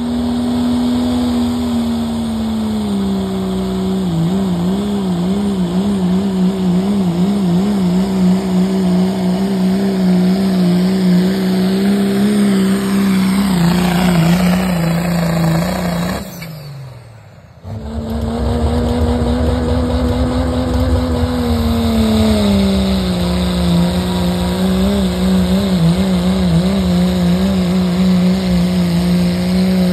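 Turbocharged diesel pickup engines at full throttle pulling a sled, two runs one after the other. Each is a loud steady high engine note that wavers in pitch and dips a few seconds in as the load builds. The first winds down with falling pitch about halfway through, and after a sudden break the second truck's run takes over.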